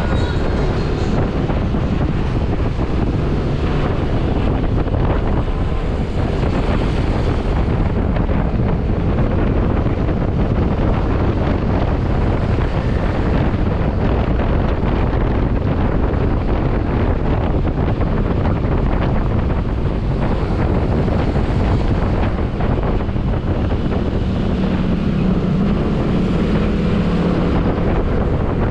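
Steady wind buffeting a GoPro's microphone on a moving motorcycle, over engine and road noise. About 24 seconds in, an engine tone grows stronger for a few seconds.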